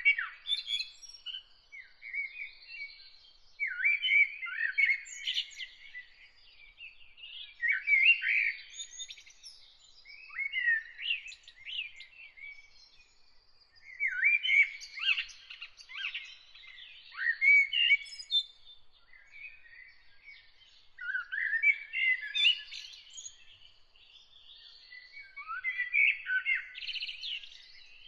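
A songbird singing in short, varied phrases of gliding, twittering notes, a new phrase every three to four seconds.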